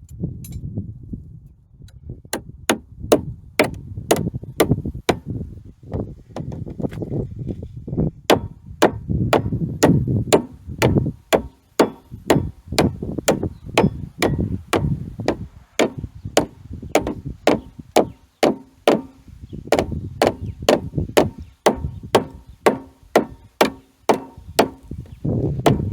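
Hammer blows, about two a second, each with a short ringing after it, driving fasteners onto two butted wooden sawmill track boards to hold the joint together.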